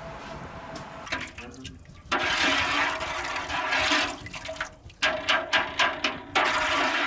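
Liquid splashing and sloshing in a large cooking pot as a hand works in it, in loud spells starting about a second in, with a quick run of sharp clicks shortly before the last spell.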